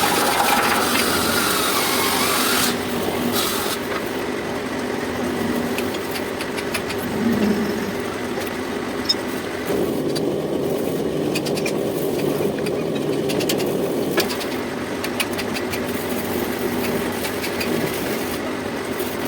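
Metal lathe running steadily while turning a steel pipe nipple, with a high cutting hiss that stops about three seconds in and scattered light clicks and ticks afterwards.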